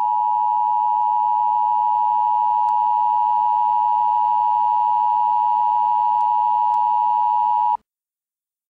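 Emergency Alert System attention signal: a loud, steady two-tone beep held unbroken for nearly eight seconds, then cut off abruptly a second before the end.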